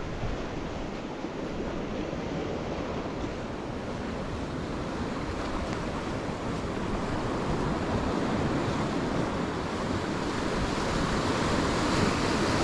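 Sea surf washing in over low rocks along a rocky shore, a steady rush of breaking water that grows louder toward the end.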